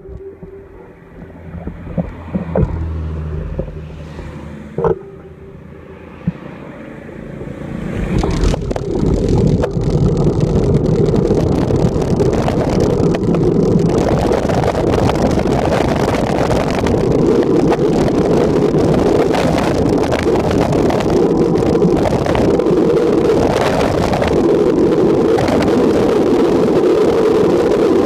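Wind rushing over the microphone of a camera mounted on a moving road bike, with tyre and road noise. It is fairly quiet with a few sharp clicks for the first several seconds, then grows loud at about eight seconds in and stays a steady rush.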